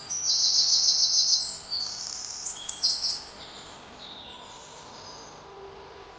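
Small songbirds chirping: a loud, fast high-pitched trill for about the first second and a half, then a few short chirps, before it settles to quieter background birdsong.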